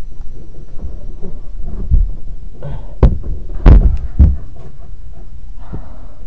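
Three heavy thumps close to the microphone, a little over a second apart about three seconds in, over a low rumbling of handling noise.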